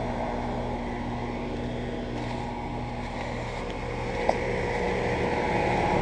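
Outdoor air-conditioner condenser units running: a steady compressor hum with fan noise, growing louder near the end, and one brief click about four seconds in.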